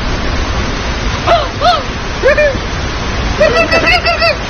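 Waterfall rushing steadily. Over it come a few short rising-and-falling calls, then a quick run of about six of them near the end.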